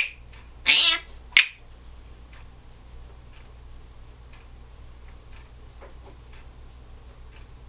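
A short call from a Timneh African grey parrot just under a second in, framed by sharp finger-snap clicks, then faint ticking about once a second.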